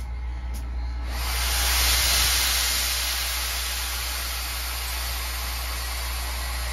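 Steam locomotive No. 40 venting steam: a loud, steady hiss that starts suddenly about a second in and holds, over a low steady hum.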